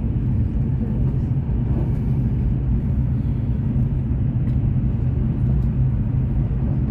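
Steady low rumble of a CR400BF-Z Fuxing high-speed train running at speed, heard inside the carriage.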